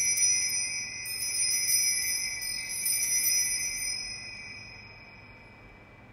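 Altar bells rung at the elevation of the consecrated host: clear, high bell ringing struck again in a few rounds, then fading away about four to five seconds in.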